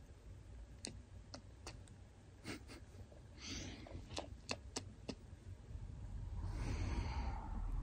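Faint close-up handling noise: scattered small clicks and soft rustles of a hand and phone moving against a blanket and a sleeping greyhound, with a short hiss about three and a half seconds in and a longer breathy rustle that swells near the end.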